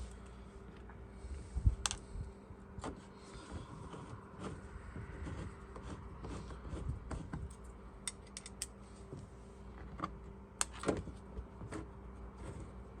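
Irregular light clicks and taps of hand tools and small metal hex bolts being handled and screwed back in to secure a car door card.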